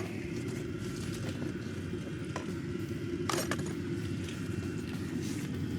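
Diesel parking heater running with a steady low hum. Two small clicks come about two and a half and three and a half seconds in.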